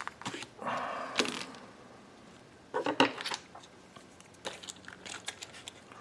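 Stiff plastic blister packaging crinkling and crunching as it is handled, with a cluster of sharp clicks about halfway through and a few lighter clicks after.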